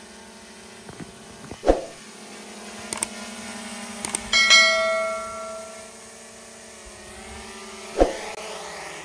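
Small quadcopter drone hovering with a steady propeller hum. Sharp knocks come under two seconds in and again near the end, and about halfway a loud clang rings on for a second or so.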